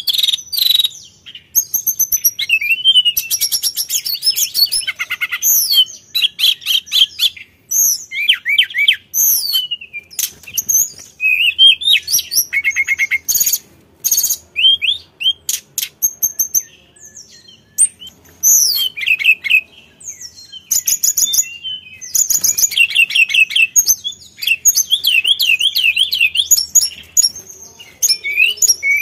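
A caged blue flycatcher (tledekan gunung, sulingan) singing a long, varied song: clear whistled phrases that rise and fall, mixed with fast trills and chattering runs, broken by short pauses.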